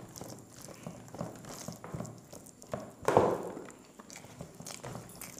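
Eating by hand: fingers mixing rice and chicken curry on plates, with small squishes and clicks and soft mouth sounds, and one louder short noise about three seconds in.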